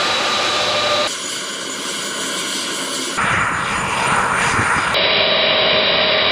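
Lockheed C-5 Galaxy's four turbofan engines running on the ground: a steady high whine over a rushing hiss. The sound changes abruptly three times as different recordings follow one another.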